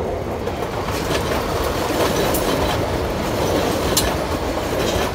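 Turbostar diesel multiple unit passing close by at speed: a steady rush of wheel and engine noise with a few sharp clicks from the wheels on the rails.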